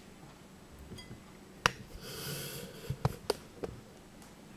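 Ceramic soup bowl handled and set down on a plastic cutting board: a sharp click about a second and a half in, a short hiss, then a couple of soft knocks.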